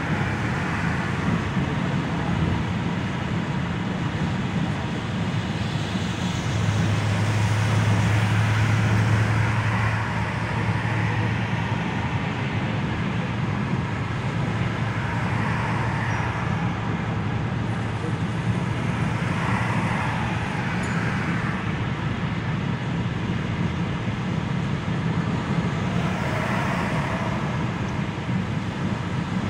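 Steady road noise heard inside a moving car on a wet highway: tyre hiss and a low engine and road hum. The hum grows louder for a few seconds about seven seconds in, and there are a few brief swells later on.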